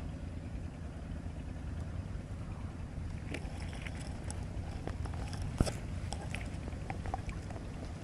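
Steady low rumble of wind on the microphone outdoors. From about three seconds in come scattered light ticks and short high chirp-like sounds, with one sharp click a little past halfway.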